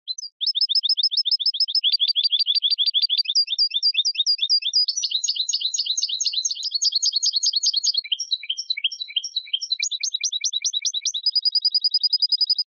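European goldfinch singing a long, unbroken song of fast high twittering trills, the phrases changing pattern every few seconds and ending on a rapid, even trill.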